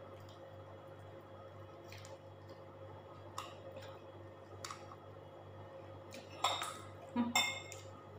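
Mussels eaten by hand: soft scattered clicks of the shells being handled and pried apart, then a few louder clicks and mouth smacks near the end as the meat goes to the mouth, over a steady low hum.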